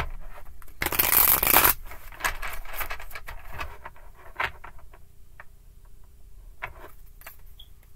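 A deck of tarot cards being shuffled by hand. There is a dense rush of sliding cards about a second in, followed by soft, irregular card clicks and rustles that thin out toward the end.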